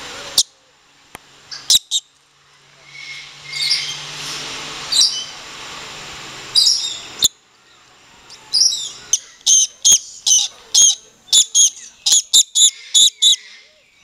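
Lorikeets giving short, shrill screeches: a few scattered calls in the first half, then a rapid run of about three a second from about halfway through.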